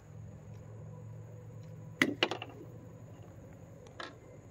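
A quick cluster of sharp clicks about two seconds in and a single click near the end, typical of hands working a pistol and its gear, over a low steady hum. These are not shots.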